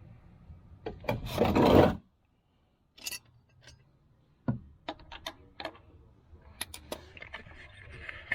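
A loud rubbing scrape about a second in, then scattered sharp clicks and light scraping of hand-handled tools and parts.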